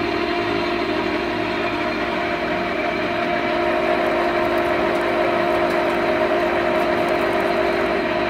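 LeBlond engine lathe running under power for thread cutting: a steady mechanical hum with an even whine from its turning spindle and gear train.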